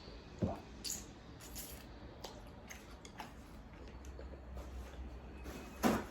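Quiet eating sounds: scattered light clicks and taps of utensils against a dish, with chewing, and a louder soft knock near the end.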